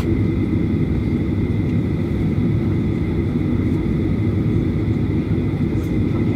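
Jet airliner's engines running at low power, heard from inside the cabin on the ground: a dense, steady rumble with a thin, steady high whine above it.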